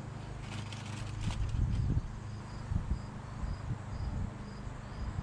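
Insects chirping in an even rhythm, about two chirps a second, over a low steady hum. A few light clicks and rustles come around the first second, and soft knocks follow later.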